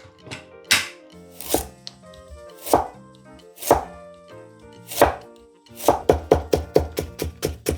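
Kitchen knife chopping on a cutting board: a few single strokes about a second apart, then fast, even chopping at about five strokes a second starting around six seconds in.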